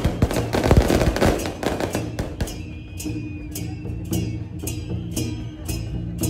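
Strings of firecrackers crackling, fading after about two seconds. Then procession music carries on, with a sharp percussion strike about twice a second over steady low sustained tones.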